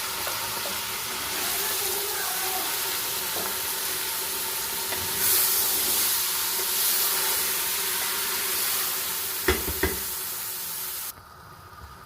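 Minced meat with a yogurt marinade frying in hot oil with browned onions, sizzling steadily while being stirred; the sizzle grows louder about five seconds in. Two sharp knocks of the spoon against the pot near the end, then the sizzle cuts off suddenly.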